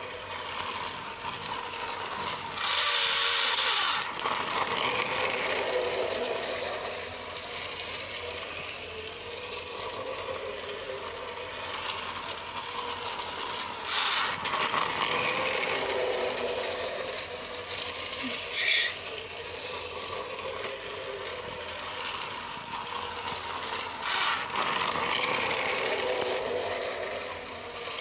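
Battery-powered toy locomotive's small gear motor running as it pulls its train around a plastic toy track, a steady mechanical whirr that grows louder three times, roughly every ten seconds, as the train passes close by.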